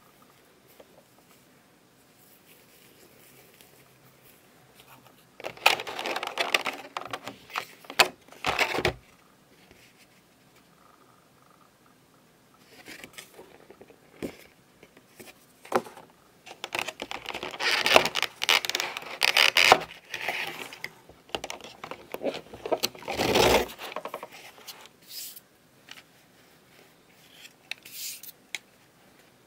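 Hands handling headphone packaging and parts: scraping and rustling with sharp clicks, in a short burst several seconds in and a longer run through the middle.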